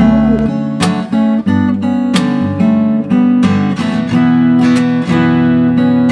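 Background music: a strummed acoustic guitar, with a fresh chord attack about every half second to second.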